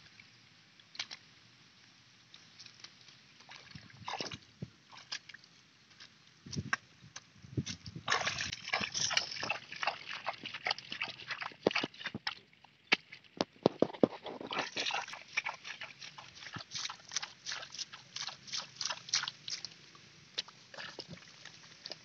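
Hands splashing and squelching through shallow muddy water and soft mud while groping for fish. It is sparse at first. From about eight seconds in come dense runs of sharp wet slaps and splashes, with a short lull before a second busy run.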